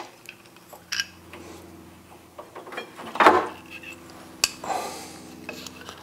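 Light metal clinks and taps as a motorcycle's front brake caliper is handled and set over the steel crash bar, with a sharp knock about four and a half seconds in.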